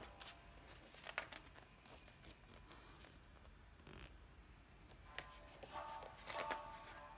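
Faint rustling and light clicks of the heavy pages of a large hardback illustrated book being handled and turned. Soft music comes back in over the last second or so.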